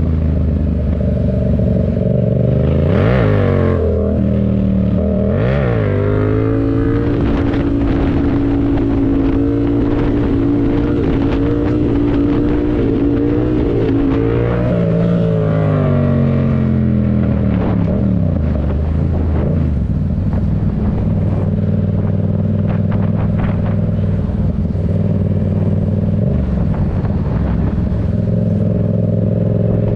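Yamaha MT-07's 689 cc crossplane parallel-twin engine through an aftermarket Black Widow exhaust. It gives two quick throttle blips a few seconds in, then holds a steady higher note for several seconds. Around halfway the note falls away, and the engine settles to a low steady note with a few small blips.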